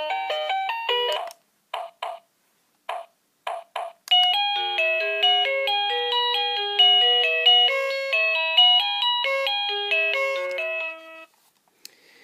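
Wireless doorbell receiver playing electronic chime melodies: a tune breaks off after about a second, a few short single chimes follow, then a longer stepping tune plays for about seven seconds and stops.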